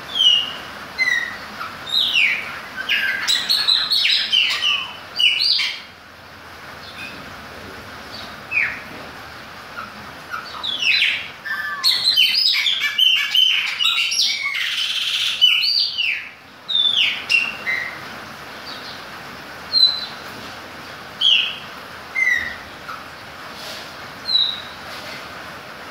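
Chopi blackbird (Gnorimopsar chopi) singing: clear, short whistled notes that mostly slide downward, scattered singly and massed into two rapid runs of song, one a couple of seconds in and one around the middle.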